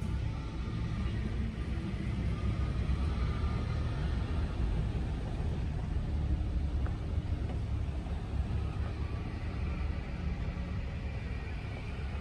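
Moving vehicle heard from on board: a steady low rumble of engine and road noise.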